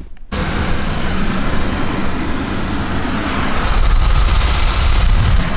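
Land Rover engine idling, heard from inside the cabin: a steady low hum under a hiss of air that swells a little about three and a half seconds in.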